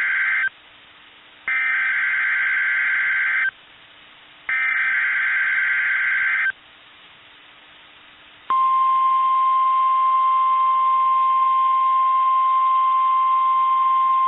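NOAA Weather Radio Emergency Alert System signal: the digital SAME header plays as warbling two-tone data bursts about two seconds long, a second apart. The first burst ends just after the start and two more follow. About eight and a half seconds in, a steady single-pitch 1050 Hz warning alarm tone begins and holds, heralding a tornado watch.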